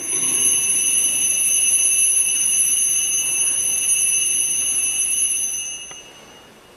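Altar bells ringing at the elevation of the host during the consecration of the Mass: a steady, high ring that starts suddenly and fades out about six seconds in.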